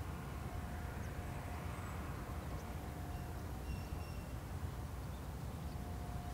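Steady low rumble of a train, heard under wind noise.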